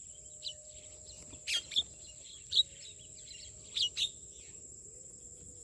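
Birds giving short, sharp chirping calls, about six in a scattered run, over a steady high-pitched insect drone.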